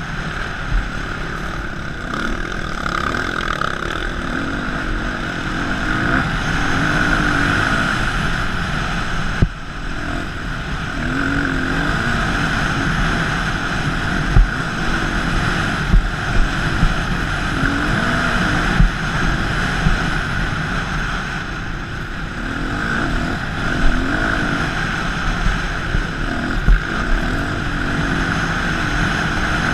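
Dirt bike engine running while riding over sand, its pitch rising and falling with the throttle, under steady wind rush on a helmet-mounted microphone. Several brief knocks come through in the second half.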